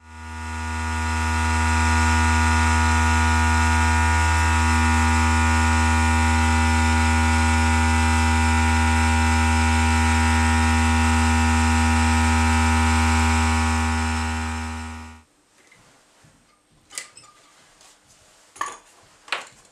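Homemade Harwell-type thermomechanical generator, a free-piston Stirling engine, running with a loud steady low hum rich in overtones. The hum fades away about fifteen seconds in, leaving a few light clicks and knocks near the end.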